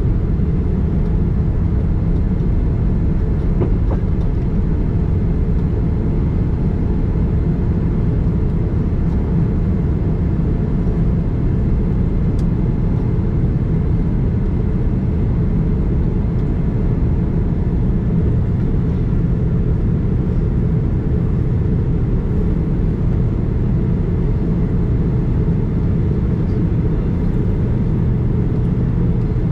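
Steady low rumble inside the cabin of a Boeing 787-9 airliner, with no rise or fall in level.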